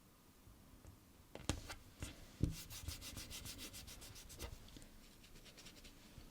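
Fingers smoothing a sticker down onto a paper sticker-book page: a few light taps, then a quick run of rubbing strokes, several a second, that fades out near the end.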